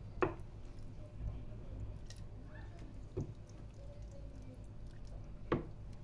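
Wooden spoon scooping saucy meat-and-vegetable stew from a metal baking tray onto a plate: soft wet squelching with three light knocks, the first just after the start and the loudest, another about three seconds in and one near the end.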